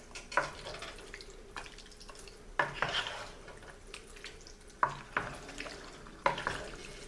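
Wooden spoon stirring a thick oxtail stew of noodles, vegetables and tomato sauce in a pot. Wet squelching and scraping, broken by several sharp irregular knocks of the spoon against the pot.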